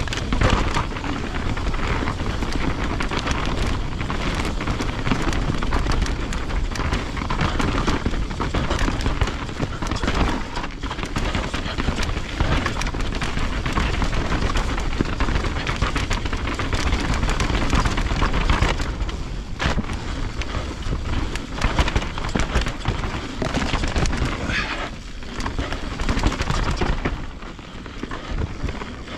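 Mountain bike riding over a rough dirt trail: wind buffeting the microphone over tyre noise, with frequent knocks and rattles from the bike over the ground. It eases briefly near the end.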